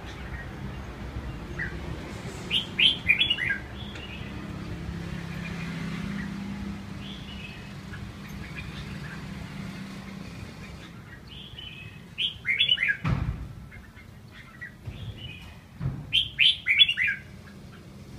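Red-whiskered bulbul singing in short, loud bursts of quick chirpy notes, about 3, 12 and 16 seconds in, with softer single notes between them. A dull thump comes about 13 seconds in.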